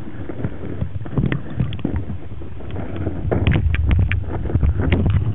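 Muffled underwater noise from a submerged camera: a steady low rumble of moving water with irregular clicks and knocks, which get busier and louder about three seconds in.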